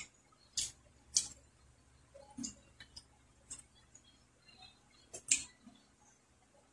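Mukbang eating sounds while hand-eating rice and crispy mushroom chips off a banana leaf: a handful of short, sharp crackles and clicks a second or so apart, the loudest about five seconds in.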